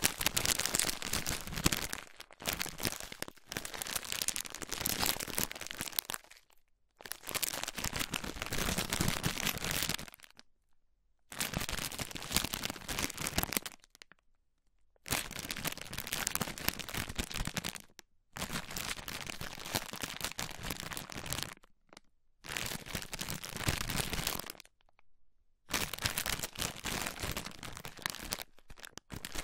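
Plastic instant-noodle bag rustling and crinkling as it is handled, in a series of separate bursts of one to four seconds with short silent gaps between them.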